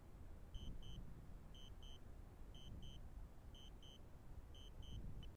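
Drone remote controller beeping a pair of short high beeps about once a second, the signal it gives while the drone flies back on return-to-home. A low, uneven rumble runs underneath.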